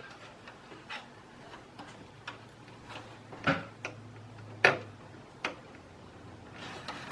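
Small sharp clicks and taps of front-panel connector plugs being handled and pushed onto the motherboard's header pins, scattered and irregular, with two louder clicks a little past the middle.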